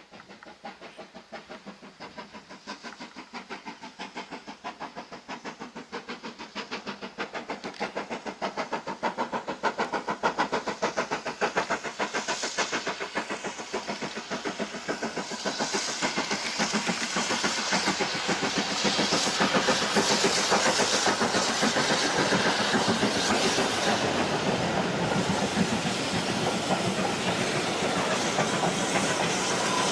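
Steam locomotive 70013 Oliver Cromwell, a two-cylinder BR Standard Britannia 4-6-2, working a passenger train with a fast, even beat of exhaust that grows from faint to loud as it approaches. Near the end the coaches rattle past over the rail joints.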